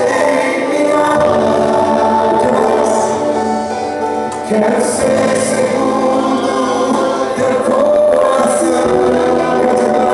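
Christian worship song with singing over instrumental accompaniment, playing continuously.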